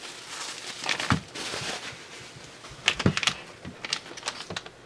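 Plastic packaging crinkling, with a few sharp clicks and knocks, as small parts are handled.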